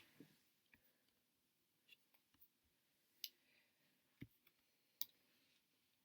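Near silence: quiet room tone broken by a handful of faint, short clicks, the three sharpest about a second apart in the second half.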